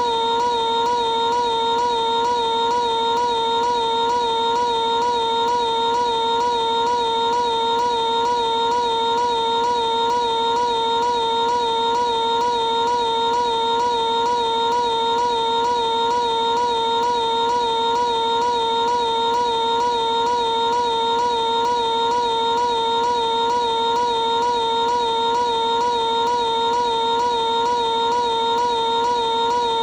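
Piglet's high cartoon voice screaming, drawn out into one unbroken, slightly wavering note that holds the same pitch and loudness throughout.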